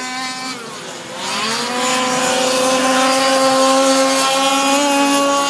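Small two-stroke petrol engines of 1/5-scale RC trucks buzzing at a high pitch. The engine note dips about a second in, then climbs back up and holds steady as a truck accelerates along the ice track.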